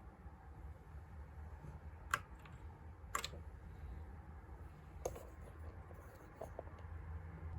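RGB computer keyboard clicking: a handful of separate key presses or knocks, the loudest about two seconds in and another about a second later, over a faint low hum.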